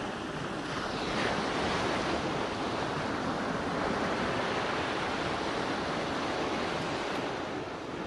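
Ocean surf: waves washing onto a beach in a steady rush that swells about a second in and eases off near the end.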